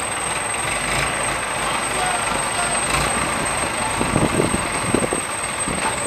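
Diesel engine of an Escorts hydra crane running steadily while it holds and lowers a road roller, with men's voices calling out about four seconds in.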